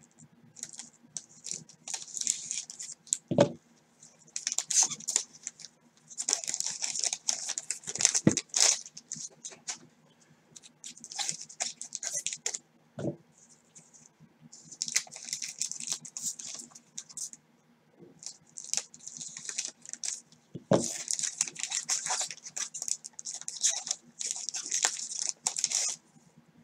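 Wrappers of 1989 Score football card packs being torn open and crinkled in gloved hands, in repeated rustling bouts, with cards shuffled out and a few soft knocks as they are set down on the table.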